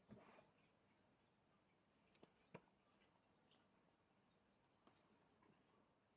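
Near silence: a faint steady high-pitched whine with two faint clicks about two and a half seconds in.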